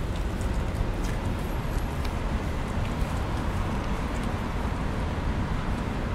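Steady traffic on a busy city street: an even rumble of passing cars with a heavy low hum that never drops away.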